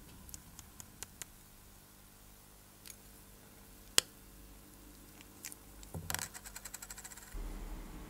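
Small clicks and taps of fingers handling a steel watch case and its acrylic crystal, with one sharp snap about four seconds in as the crystal is pressed out of the case. A quick run of light clicks follows near the end.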